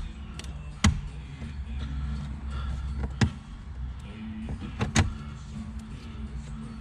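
Plastic dashboard trim on a 2007 Toyota Camry Solara being pried and yanked at, with three sharp clicks or knocks about one, three and five seconds in. The trim is stuck tight and won't come free easily.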